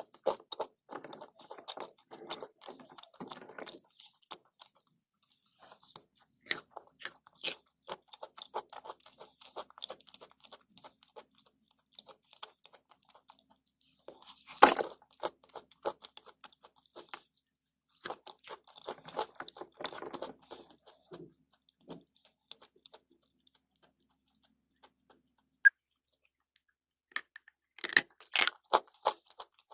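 Close-up crunching and chewing of chalk and clay: runs of dry crackles, one loud bite-snap about halfway through, a short pause, then more loud crunches near the end.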